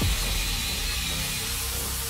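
Angle grinder with a flap disc grinding down weld seams on steel, a steady high whine over a hiss of grinding.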